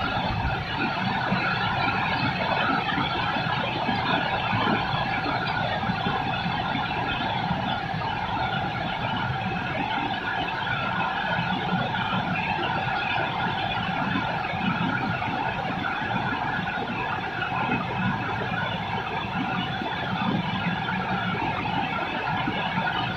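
Steady rain over a city, mixed with a constant hum of traffic and a few faint steady tones, unchanging throughout.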